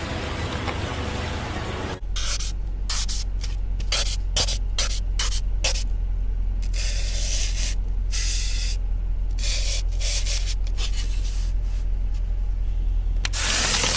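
Dry floral foam being handled and poked with uncooked spaghetti sticks: a string of short, crunchy, hissing scrapes over a steady low hum, with a louder, longer hiss near the end.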